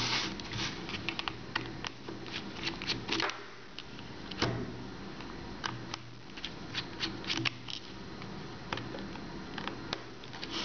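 Irregular small clicks and ticks of a precision screwdriver's Torx bit working the tiny screws in a plastic laptop battery pack's case, with fingers handling the pack.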